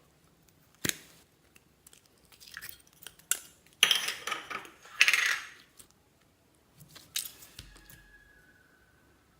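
Small hard objects clinking and clattering: a sharp click about a second in, two short rattling bursts around four and five seconds in, and another click near seven seconds.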